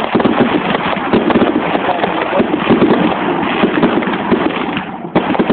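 Fireworks going off in a dense, continuous run of crackles and pops, with a short lull about five seconds in.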